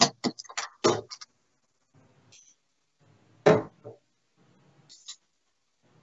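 Darts striking a Winmau Blade 5 bristle dartboard as short knocks. There are several in the first second and the loudest single thud about three and a half seconds in.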